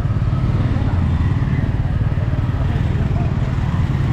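City street traffic: motorbikes and cars running close by, a steady low rumble.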